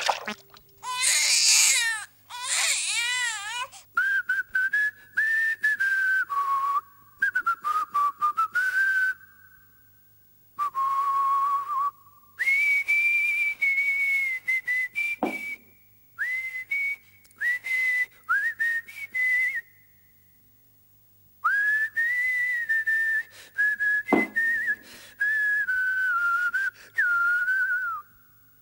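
Whistling of a slow, wandering tune: long held notes with small wavers, in several phrases broken by short pauses. Twice a quick downward swoop cuts in, and a short warbling trill comes right at the start.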